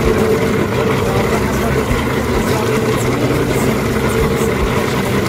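A fishing boat's engine running with a steady low hum.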